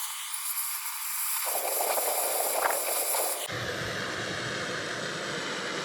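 Handheld gas blowtorch hissing as it heats a bolt. The high hiss cuts off suddenly about three and a half seconds in, leaving a lower, steady rushing noise.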